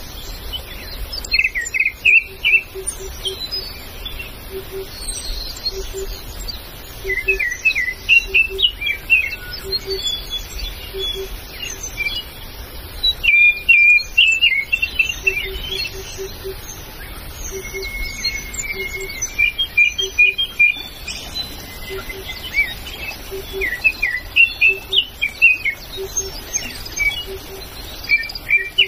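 Several forest birds chirping and trilling in quick, high phrases. A short low note repeats in runs of two to four.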